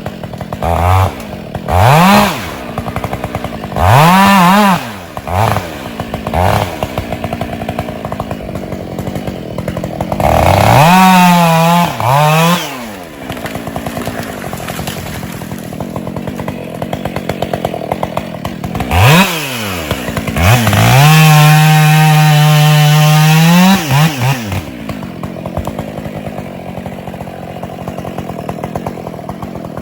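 Husqvarna 572 XP two-stroke chainsaw idling and being revved in short blips that rise and drop back. Near the middle it is held at high revs for about three seconds before falling back to idle.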